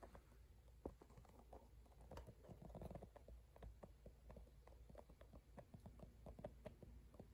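Near silence: room tone with faint, scattered light clicks.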